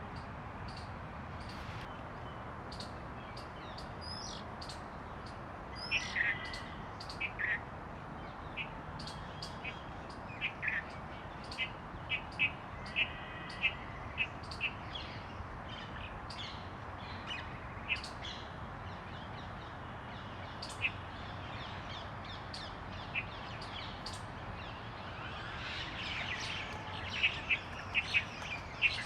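Oriental magpie robin calling: short, high whistles and chirps, some sweeping quickly upward, spaced irregularly, with a denser run of calls near the end. A steady background hiss runs underneath.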